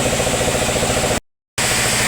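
An engine running steadily with a fast, even pulse. The sound cuts out completely for about a third of a second just after the middle, then resumes unchanged.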